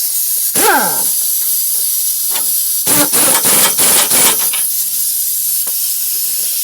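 Impact wrench on its lowest speed driving a rear sway bar link nut: a brief whir that winds down about half a second in, then a run of rapid hammering from about three seconds in to about four and a half seconds. A steady high hiss runs underneath.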